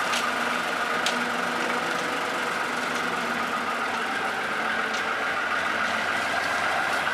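Farm tractor's diesel engine idling steadily.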